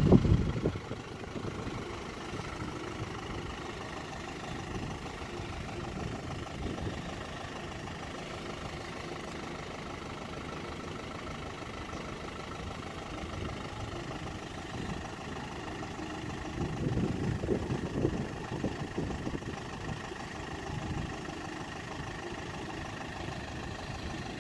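The 1988 Isuzu Bighorn's 2.8 L 4JB1-T turbo-diesel idling steadily, heard from outside the vehicle. A louder low rumble swells for a second or two about two-thirds of the way through.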